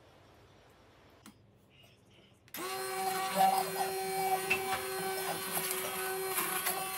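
Immersion hand blender switching on about two and a half seconds in and running steadily with a constant hum. It is blending onion-tomato curry masala in a pot into a smooth paste.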